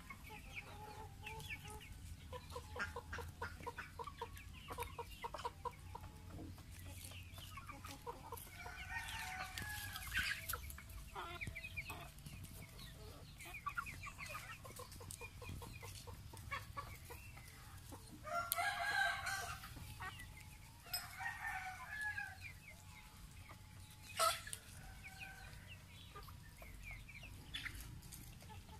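A chicken flock clucking and calling throughout. A few louder calls stand out about a third of the way in, and again around two-thirds through. There is one sharp click near the end.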